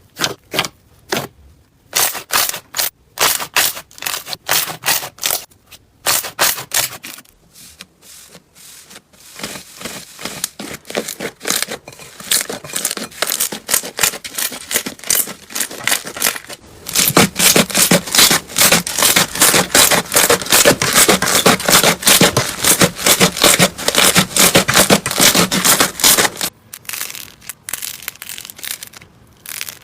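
Slime worked by hand: trains of quick crackles and pops as it is pressed and squeezed, densest and loudest from a little past halfway until near the end.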